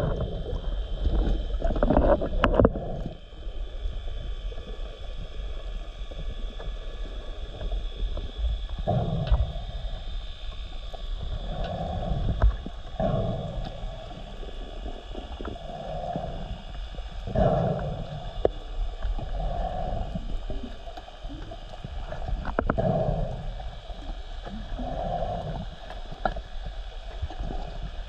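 Scuba diver breathing underwater through a regulator, heard through the camera housing, with bursts of exhaled bubbles recurring every few seconds.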